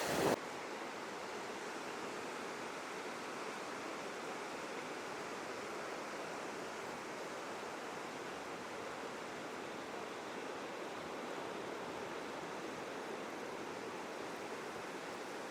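Steady surf on a beach, an even wash of noise with no breaks or single waves standing out.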